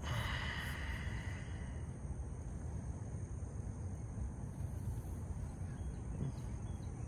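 Outdoor ambience: a steady low rumbling noise on the microphone with a faint, steady high insect drone, and a brief brighter hiss in the first second or so.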